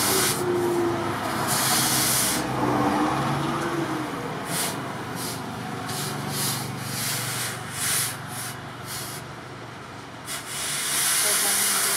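Red-hot forged steel knife blade quenched in a water trough, hissing and sizzling in bursts as it is plunged in and drawn through the water. The loudest hisses come at the start, about two seconds in and near the end, with shorter hisses between. This is the quench that hardens the blade.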